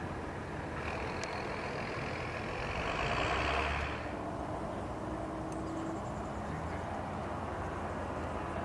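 Steady low rumble of a vehicle engine under outdoor noise. A louder rushing noise swells for a few seconds and cuts off abruptly about four seconds in.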